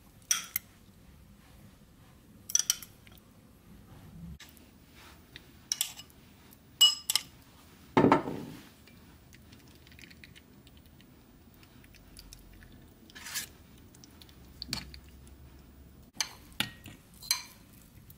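Metal spoon and fork clinking and tapping against a serving bowl and a steel ring mould as salad layers are spooned in, about a dozen separate clinks spread unevenly, with one heavier knock about eight seconds in.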